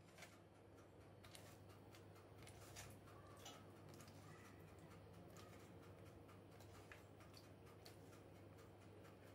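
Near silence: a faint steady hum with scattered soft clicks at irregular intervals.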